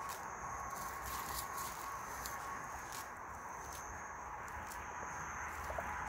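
Faint crackling rustles of golden pine needles being plucked by hand, a few scattered light clicks over a steady background hiss.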